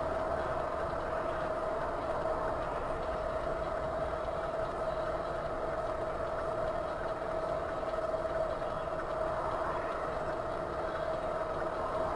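Steady running of a car engine with road noise, even in level throughout, over a constant steady hum.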